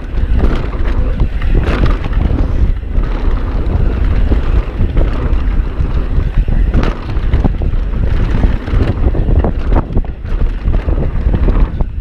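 Loud wind buffeting on a GoPro's microphone as a mountain bike rides a dirt trail. Tyre noise runs underneath, with frequent knocks and rattles from the bike over rough ground.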